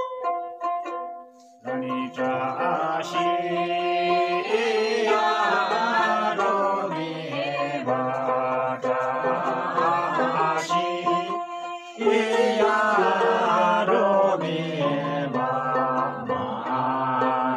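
A small plucked lute plays a few notes, then from about two seconds in a group of men and a woman sing a Hyolmo chhyanglu folk song together. The singing breaks off briefly about twelve seconds in and then starts again.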